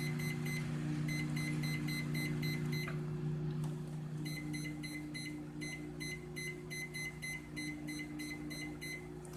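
Microwave oven running with a steady low hum while it beeps over and over, about three short high beeps a second in runs with brief gaps, as the time is set.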